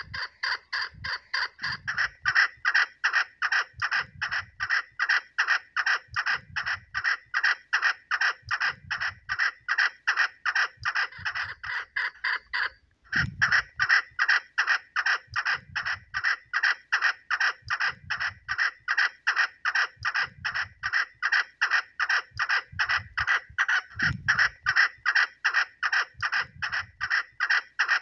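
Female chukar partridge calling: a steady, rapid series of short clucking notes, about three a second, with one brief pause about thirteen seconds in.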